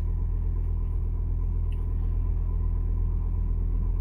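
Ford Focus ST225's turbocharged 2.5-litre five-cylinder engine idling steadily while it warms up, a low, even rumble.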